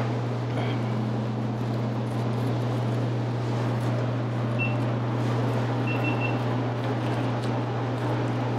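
Steady low machine hum under a constant rushing noise, with a few faint short high chirps about halfway through.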